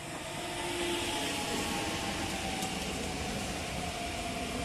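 PESA Elf 2 (36WEhb) electric multiple unit running close past along the platform. Wheels rumble and hiss on the rails with a faint whine sliding slowly down in pitch, growing louder over the first second and then steady.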